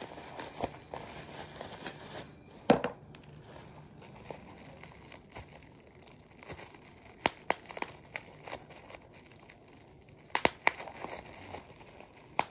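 Plastic bubble wrap crinkling as it is handled and squeezed, with a handful of sharp pops of bubbles pinched between the fingers, the loudest about three seconds in and again near ten seconds.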